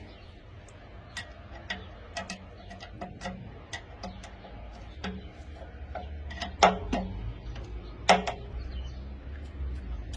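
Irregular small clicks and taps of tools and parts being handled while wiring an electric water heater, with two louder clicks about a second and a half apart in the second half, over a faint low hum.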